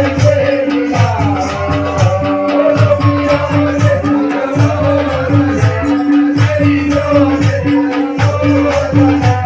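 Live folk music: drums beating a steady, even rhythm under a held drone and a wavering melody, with jingling percussion on the beat.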